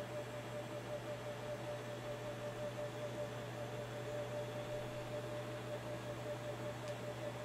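Steady background hum and hiss, with a low drone and a thin, steady higher tone above it. No distinct events.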